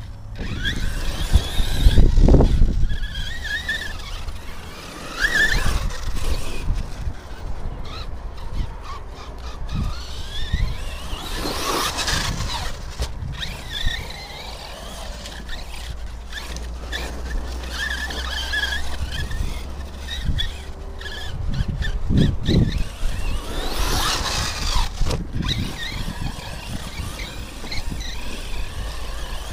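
High whine of small electric motors rising and falling in pitch, over wind buffeting the microphone, with a few dull thumps.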